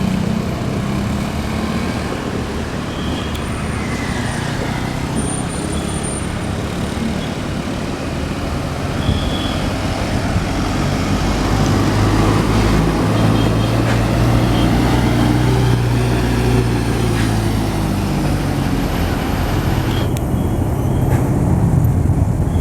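Heavy tour bus diesel engine running amid road traffic noise, its low engine note strongest through the middle.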